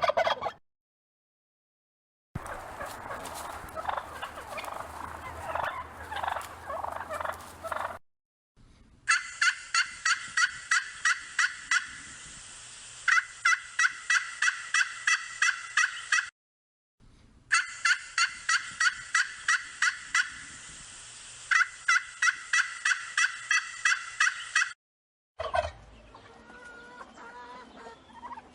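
Turkeys calling in a series of separate clips: the end of a loud call, then soft, irregular chattering calls, then two long runs of rapid, sharp notes at about four a second, and quieter scattered calls near the end.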